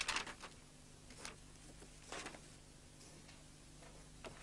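A handful of short, soft knocks and rustles over a low steady hum in a quiet room, the loudest right at the start and again near the end.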